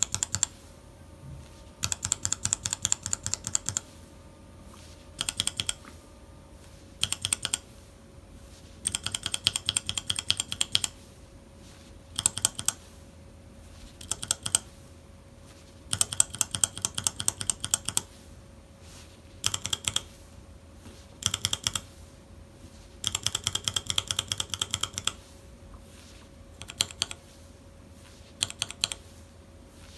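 Mechanical keyboard switches being typed on: quick runs of keystrokes clacking, each run lasting one to two seconds with short pauses between. A faint steady hum lies underneath.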